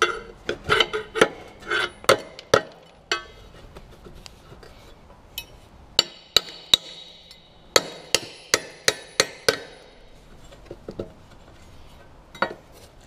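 Steel hammer blows on the blade pivot pin of a Kubota U17-3 mini excavator, driving out a pin that has just started to move. A quick run of strikes, a few single blows, then a second run, each with a short metallic ring; fainter knocks near the end.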